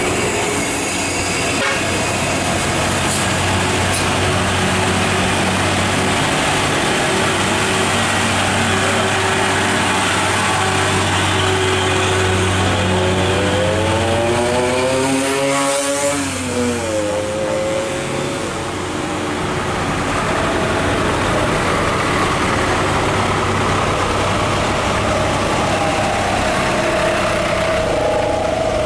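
Heavy diesel trucks running past at low speed, carrying heavy loads. About halfway through, one passes close: its engine note rises, then drops sharply as it goes by.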